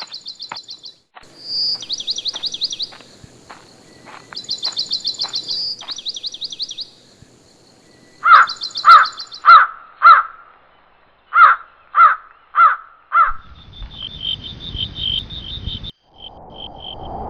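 Forest sound effects: high songbird trills repeating over faint ticking. From about eight seconds in comes a series of about ten loud, harsh crow-like caws. Near the end a low rumble sets in under a pulsing, insect-like high buzz.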